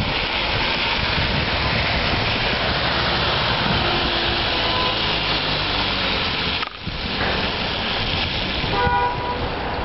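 Steady rushing noise of rain and street traffic, with a short horn-like tone about nine seconds in.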